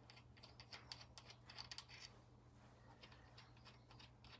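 Faint, quick metallic clicks and ticks as a bolt is turned out by hand from a timing-chain sprocket, with the chain links knocking. The clicks are thickest in the first two seconds, over a low steady hum.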